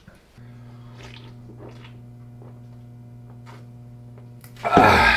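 A steady low electrical hum, then near the end a brief, loud, wet squelch as a squeeze packet of food is squeezed and sucked from.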